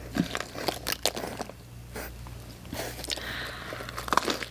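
Close-up eating sounds: biting into and chewing pizza topped with crunchy hot Cheetos, with many short crunches and mouth clicks, louder toward the end.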